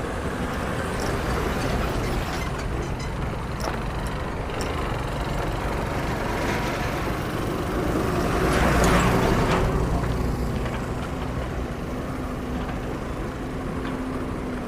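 Road traffic over a steady low rumble, with a vehicle passing close that swells to its loudest about nine seconds in and then fades.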